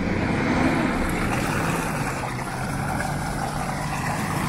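Mitsubishi L200 pickup's engine running hard under load as it drives through deep mud, a steady drone that rises slightly in pitch partway through.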